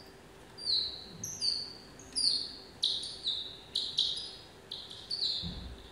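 Slowed-down playback of a northern free-tailed bat (Chaerephon jobensis) recording: about a dozen short chirps, each falling in pitch, in an irregular series. They are calls elicited by an Autobat acoustic lure, presented as a sequence of social calls.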